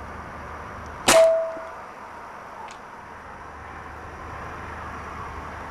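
A single air rifle shot about a second in: a sharp crack followed by a brief metallic ringing tone that dies away within about half a second.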